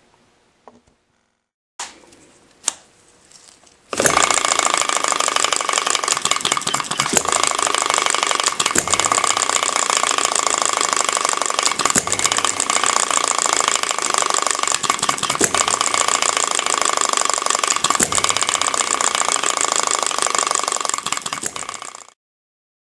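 Model Upshur hit-and-miss engine running on its standard governor weights and springs: a fast, steady mechanical clatter of ticks, with a sharper click standing out every few seconds. It comes in abruptly about four seconds in and cuts off near the end.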